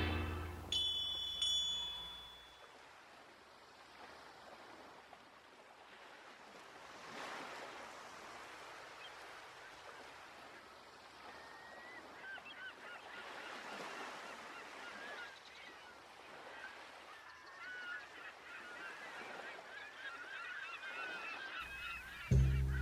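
A last music chord dies away in the first couple of seconds, then seagulls cry over a faint steady sea wash, their short wavering high calls starting about halfway through and growing busier toward the end.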